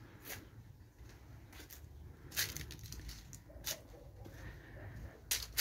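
Soft, irregular footsteps and scuffs of someone walking along a concrete garden path, a few short clicks spread unevenly over a faint low background rumble.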